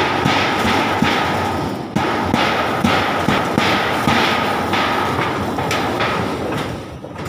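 Repeated hammer blows, roughly two to three a second, during corrugated metal roofing work, with a steady tone underneath.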